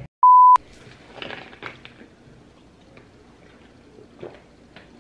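A short, loud electronic beep at one steady pitch just after the start, then faint swallowing and liquid sounds of someone drinking from a large plastic bottle.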